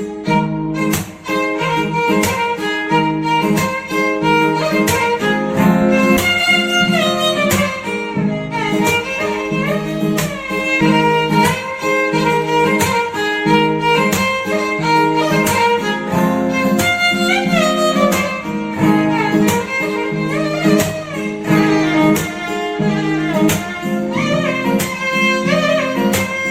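Background music: a melody on bowed strings like a violin over a plucked guitar-like accompaniment, with a steady beat.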